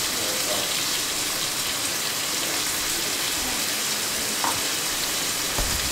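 Chopped onions, green chillies, garlic and ginger sizzling steadily in hot oil and ghee in a wok: a constant frying hiss.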